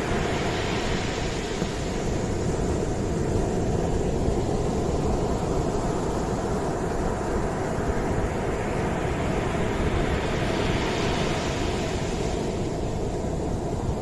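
Sea surf breaking and washing up a sandy beach: a continuous rush of water with a steady low rumble underneath. The hissing wash swells twice, at the start and again from about eight to twelve seconds in.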